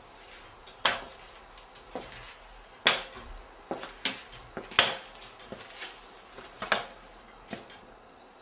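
The hanging hardware of a swinging heavy boxing bag clinking and knocking as it sways: a sharp clink about every two seconds with fainter ones in between.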